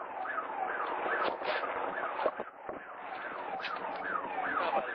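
An electronic siren sounding in fast, repeated downward sweeps, about two a second, with a few sharp cracks mixed in.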